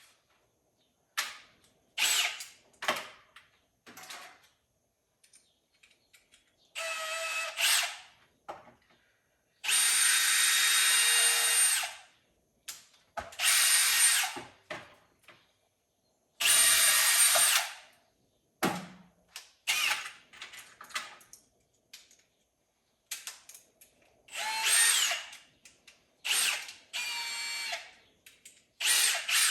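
A power drill boring holes, run in about a dozen short bursts with a high motor whine, a few of them lasting about two seconds. One burst near the end spins up with a rising whine.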